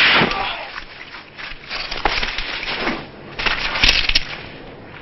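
Samurai-film sword-fight soundtrack: a short cry at the start, then scattered sudden hits and rustles, with a cluster of sharp impacts and two sharp clicks about four seconds in.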